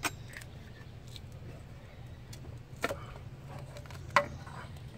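Thermostat housing being worked loose and pulled off an engine: a few sharp handling knocks and clicks, the loudest a little over four seconds in, over a steady low hum.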